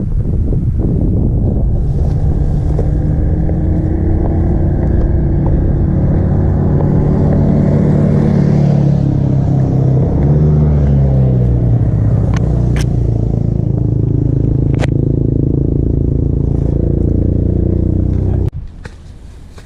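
Motor vehicle engine running, its pitch dipping and rising as it changes speed, with a few sharp clicks. It stops abruptly near the end.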